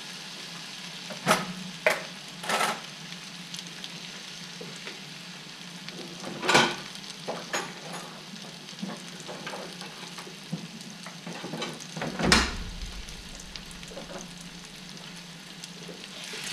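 Date paste frying in oil and ghee in a pan: a steady sizzle. Several sharp knocks sound over it, three in the first few seconds, one about six seconds in and a louder one at about twelve seconds.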